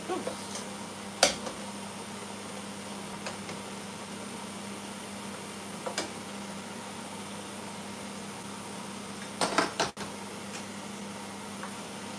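Metal cooking utensils clinking against a pot on the hob: a sharp clink about a second in, lighter ones around three and six seconds, and a quick run of clatters near ten seconds. Under them runs a steady hum.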